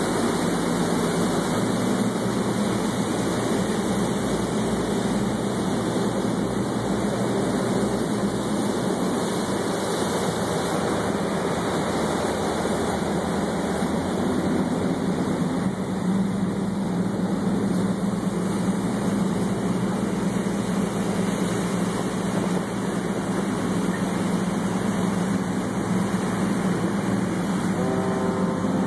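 Pilot boat's engine running steadily under way, with water rushing along the hull and churning in the wake.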